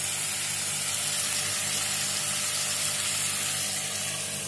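Soy-sauce-marinated chicken drumsticks sizzling steadily in oil in a nonstick wok over a low flame, a soft even hiss that eases slightly near the end.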